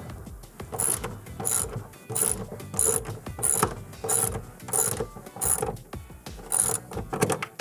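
Socket ratchet wrench clicking in repeated strokes, about ten of them, one every two-thirds of a second, as it tightens a mounting-plate bolt into the wall.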